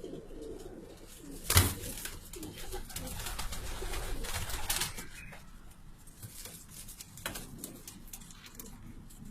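Domestic pigeons cooing. A single sharp knock about one and a half seconds in is the loudest sound, and a louder rustling stretch runs from about two and a half to five seconds in.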